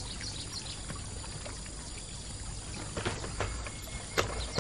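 Steady outdoor background noise, an even soft hiss, with a few faint clicks in the second half.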